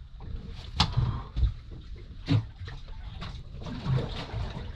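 A few sharp clicks and knocks of gear being handled on a boat's deck, over a low, uneven rumble of wind and water.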